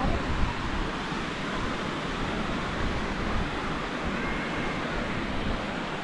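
Steady wash of sea surf on a sandy beach, mixed with wind on the microphone.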